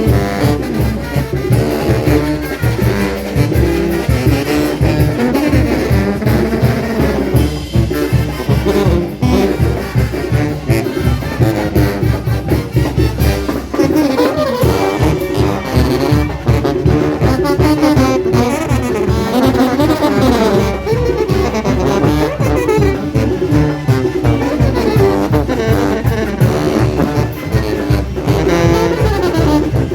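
A Oaxacan brass band playing dance music: trombones, trumpets and saxophones carry the melody over a fast, steady drum beat.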